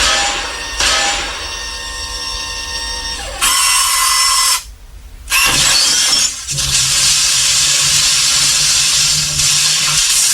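Synthesized Dalek sound effects: a chord of steady electronic tones for the first few seconds, then bursts of harsh hiss with a short drop-out about five seconds in, and a low hum under the hiss in the second half.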